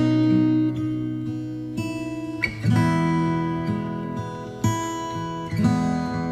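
Background music: acoustic guitar strumming chords, struck again every second or two and left to ring.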